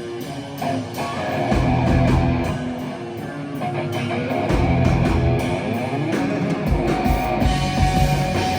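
Live rock band playing an instrumental passage with no singing: guitars to the fore over bass guitar and drums.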